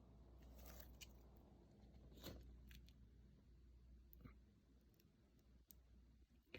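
Near silence: a low steady hum with a few faint scattered clicks and knocks.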